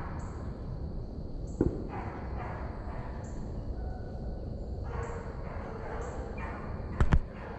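Hunting hounds baying in the distance on a deer drive, in repeated drawn-out calls. A sharp click sounds about a second and a half in, and two loud knocks come close together near the end.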